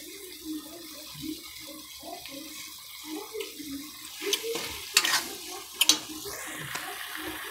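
Thick oyster-sauce gravy bubbling in a pan over the heat, with irregular low blips. A metal utensil clinks sharply against the pan three times in the second half.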